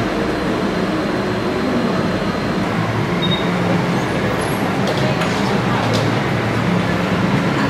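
Steady street traffic noise coming in through a café's open front, with faint background voices and a few light clicks in the second half.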